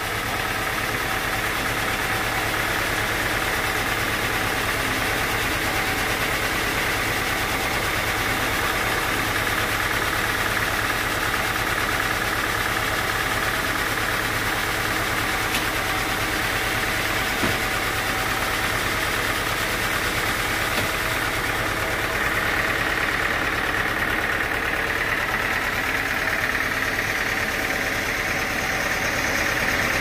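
Sawmill machinery running steadily: an even, engine-like drone with a steady higher whine over it.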